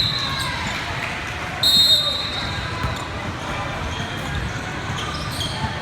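A basketball bouncing on a gym floor amid voices, with a short, high, shrill whistle blast about two seconds in.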